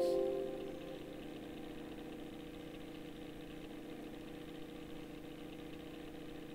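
Tail of a Windows warning-dialog chime fading out in the first second, then a steady low electrical hum.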